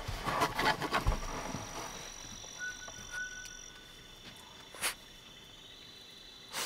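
Small dog chewing and crunching on a piece of chicken, with a run of crackling clicks in the first second and a half and a single sharp click about five seconds in. Insects call with steady high-pitched tones behind it.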